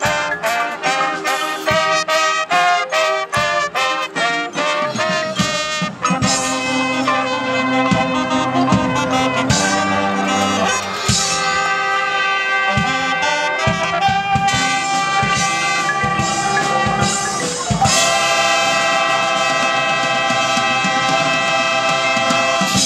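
Marching band playing brass-led music. Short, punchy chords come first, then sustained brass chords, ending on a long held chord that cuts off sharply.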